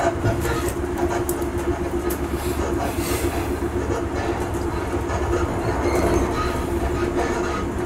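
Passenger train running along the track, heard from inside the carriage: a steady low rumble and hum with irregular clicks and knocks of the wheels over the rails.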